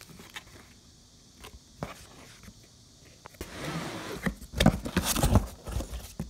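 Cardboard box and paper leaflet being handled while a delivery box is unpacked: a few faint clicks, then from about three and a half seconds in, loud rustling and scraping of card and paper close to the microphone.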